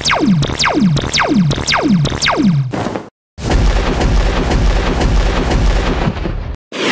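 Cartoon battle sound effects: five quick zaps, each falling steeply in pitch, about two a second. After a brief cut, a dense stretch of explosion rumble and rapid gunfire-like cracks follows, ending in another abrupt cut.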